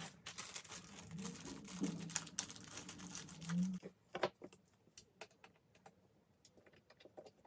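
Clicks and knocks of white flat-pack bookshelf panels being handled and fitted together, busy for about four seconds, then scattered light clicks.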